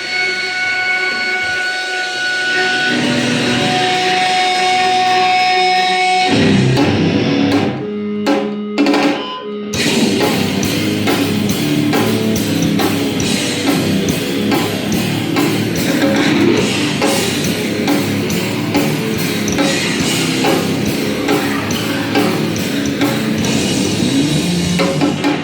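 Live heavy rock band playing loud, with electric guitar and drum kit. Held guitar notes ring for the first several seconds, then the full band crashes in. A few abrupt stop-start hits follow, and then the band keeps playing with steady, driving drumming.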